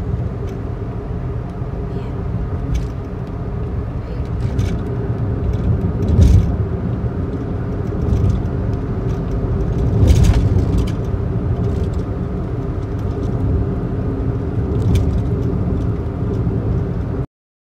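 Car driving on the road, heard from inside the cabin: steady engine and tyre rumble, with a few louder swells. It cuts off suddenly near the end.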